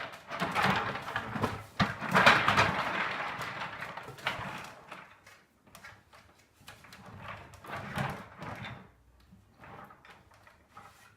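Small wooden cart rolling on its newly fitted casters, rattling and knocking as it moves, loudest in the first few seconds, then a few shorter rolls and bumps before it stops.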